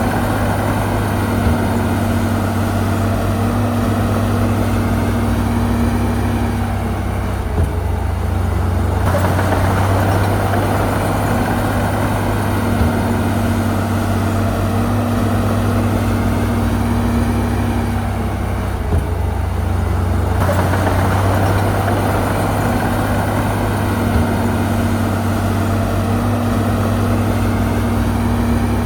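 Heavy diesel engine of a bulldozer running continuously with a deep hum, its sound shifting twice, about eleven seconds apart, as the load changes. A few light clanks are heard along the way.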